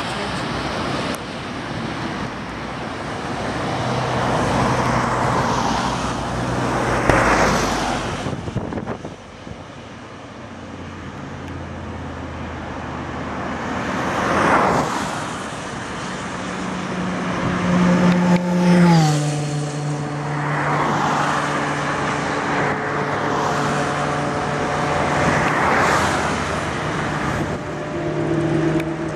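Road traffic: several cars pass one after another, each swelling and fading. In the second half a steady low engine hum from the approaching 2TE116U and TEP70 diesel locomotives comes in under the traffic, dropping in pitch once and then holding steady.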